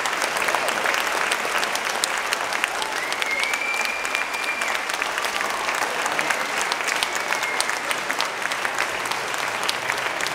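Large audience giving a standing ovation at the close of a talk: dense, steady clapping, with a long high whistle sounding over it about three seconds in.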